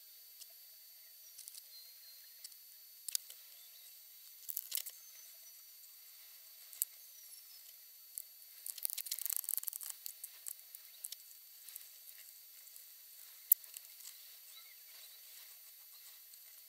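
Scattered clicks, ticks and crackles of robot parts, screws and tools being handled at a workbench, sped up and raised in pitch by a 50x time-lapse. A dense burst of crackling comes about nine seconds in, and one sharp click about thirteen seconds in.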